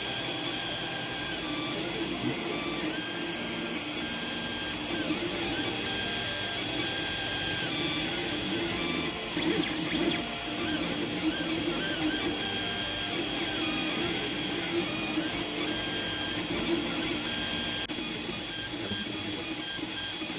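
Creality Ender 3 3D printer laying down its first layer: the stepper motors whine in short tones that start and stop as the print head moves, over a steady hum.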